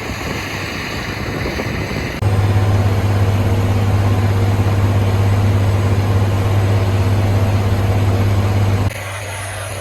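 Challenger 875C tracked tractor's diesel engine running steadily while pulling a disc harrow across the field. The sound changes abruptly twice as the footage cuts: a louder, steady low drone from about two seconds in until near the end, with a lighter engine-and-field sound before and after.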